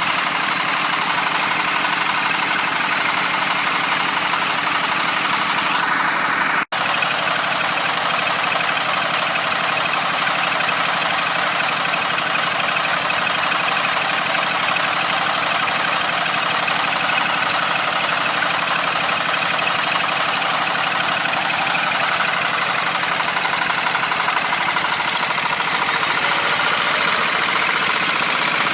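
A small farm machine's engine runs steadily, with one brief, sudden dropout about seven seconds in.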